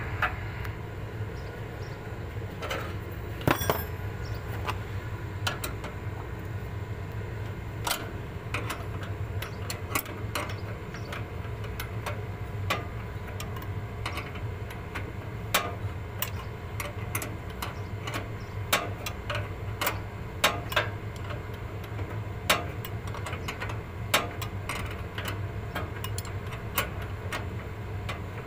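Irregular sharp metal clicks and taps of a hand tool tightening the nuts that hold a split AC compressor on its new rubber mounts, over a steady low hum.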